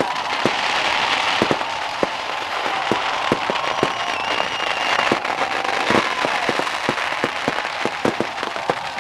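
Fireworks going off from a burning wooden effigy: irregular sharp pops and bangs over a dense crackle, with a few high whistles.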